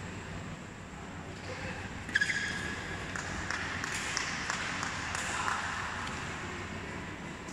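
Badminton doubles play in a hall: a sharp shoe squeak on the court about two seconds in, then a series of short racket-on-shuttlecock hits, over a murmur of spectators' voices that swells in the middle.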